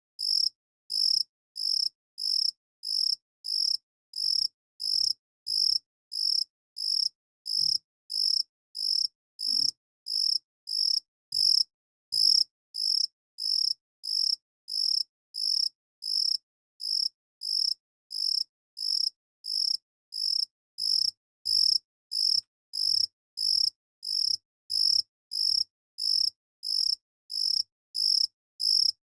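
Cricket chirping in a steady, even rhythm, a little under two short high-pitched chirps a second with silence between them.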